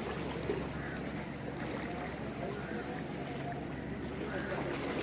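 Steady low hum of a distant boat engine under waterside wind noise.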